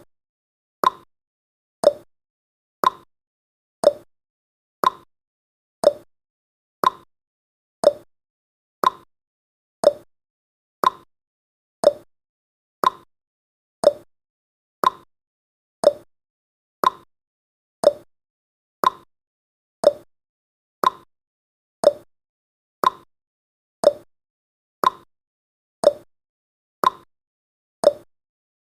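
Clock-style ticking sound effect of a countdown timer: a short, sharp tick once every second at a steady pace.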